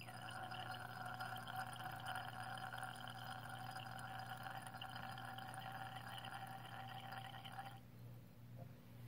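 Silver nitrate titrant running from a burette in a thin steady stream into a glass Erlenmeyer flask of chloride solution, a trickle with a ringing, multi-pitched tone. It stops suddenly near the end, when about 5 mL has gone in.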